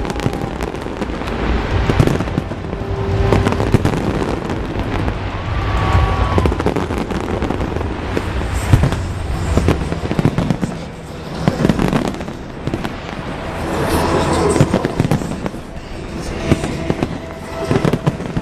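Large aerial fireworks display going off in quick, irregular succession: many bangs of shells bursting overhead, mixed with crackling.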